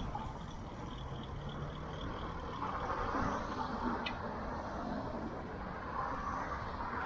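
Outdoor road traffic: a steady rumble and hiss of passing vehicles, with a faint click about four seconds in.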